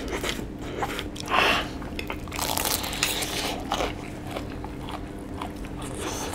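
Close-up eating sounds: crunchy bites into breaded fried chicken and chewing, mixed with the slurping of noodles, as a run of short crackly crunches and a few louder bursts.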